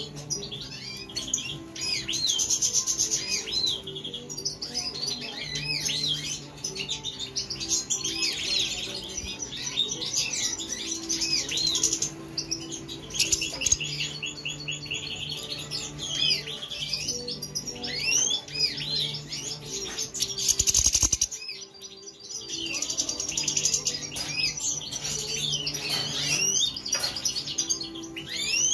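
European goldfinches (major type) singing: a fast, tinkling run of twitters and chirps with many quick rising and falling notes, almost without a break. A brief loud rustle cuts in about three-quarters of the way through.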